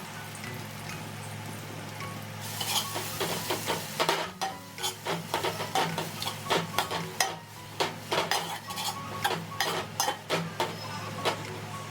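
Food frying in a kadai: hot oil sizzles up about two and a half seconds in, then a spatula stirs, scraping and knocking against the pan over and over for several seconds, over a steady low hum.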